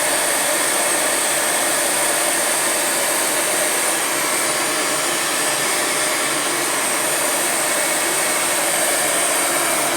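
Electric heat gun running steadily, blowing hot air to shrink a gel-lined heat-shrink tube down over a crimped motor-lead splice.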